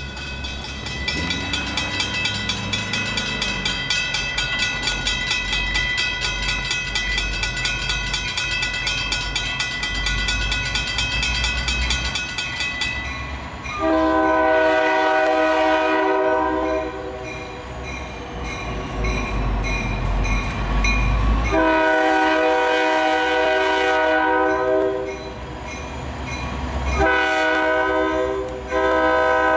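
A grade-crossing bell rings rapidly and evenly over the low rumble of an approaching diesel freight locomotive. The bell stops, and the locomotive's air horn then blows for the crossing: two long blasts, a short one and a long one.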